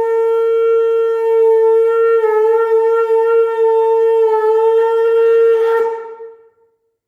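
Conch shell (shankh) blown in one long, steady note, fading out about six seconds in.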